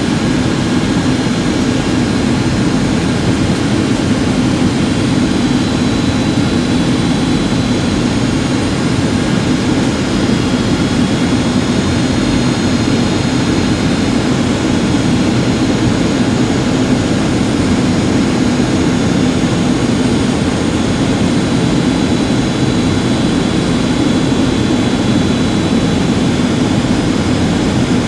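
Steady in-flight cabin noise of a Boeing 757-200: jet engines and rushing air heard from inside the cabin, an unchanging drone with a faint high whine.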